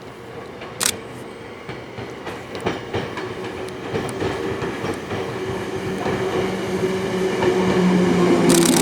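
Hakone Tozan Railway 2000 series electric train approaching, growing steadily louder, with a motor hum and its wheels clacking over rail joints. A high-pitched sound comes in just before the end.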